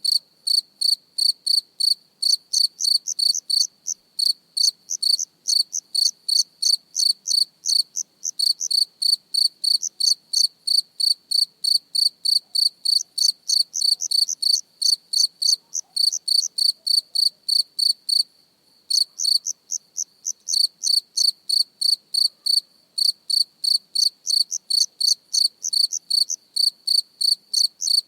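A cricket chirping close up: short, high-pitched chirps repeated evenly at about three a second, with one brief pause about eighteen seconds in.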